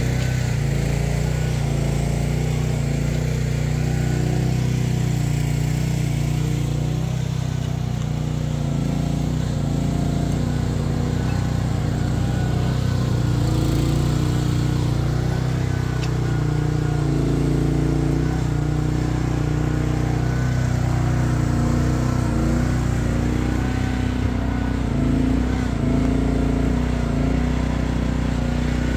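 Chery one-ton mini excavator's Briggs & Stratton 13.5 horsepower engine running at a steady speed while the machine digs, its pitch shifting only slightly as the load changes.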